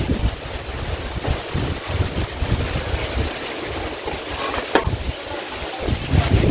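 Wind buffeting the microphone in uneven gusts, with one short sharp knock a little under five seconds in.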